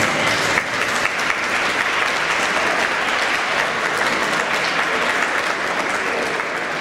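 Audience applauding steadily as the music ends, the clapping easing off slightly near the end.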